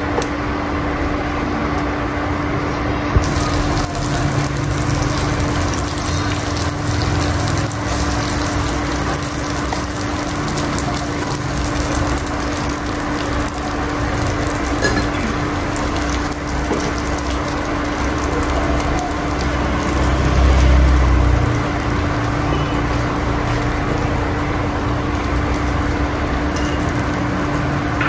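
Pork, potato slices and okra sizzling steadily in oil in a frying pan, over a steady low hum. There is a brief low rumble about two-thirds of the way through.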